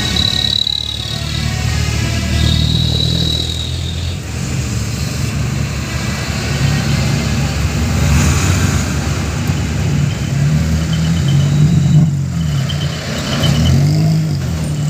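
Truck diesel engine running loud and being revved, its pitch rising and falling several times in the second half. A thin high tone sounds twice in the first four seconds.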